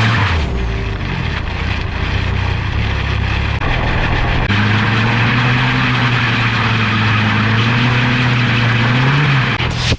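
Turbocharged Nissan Hardbody pickup doing a burnout on its welded differential: the engine is held at high revs while the rear tires spin and squeal. The revs dip about a second in, hold steady through the middle, rise slightly and fall just before the end, and a sudden sharp bang comes right at the end.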